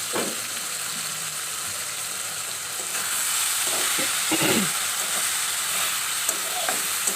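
Sliced ridge gourd and flat beans sizzling in mustard oil in a kadai, a steady hiss that gets a little louder about three seconds in.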